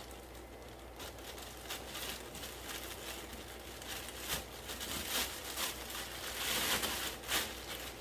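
Plastic fish-shipping bags crinkling and rustling as they are handled, in irregular crackles that get busier in the second half.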